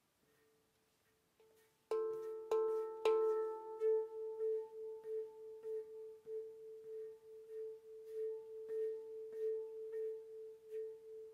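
D Kurd handpan played by hand, using only the middle finger and thumb. It starts very softly, then about two seconds in three firm strikes land about half a second apart, followed by quick, even taps that keep one note ringing.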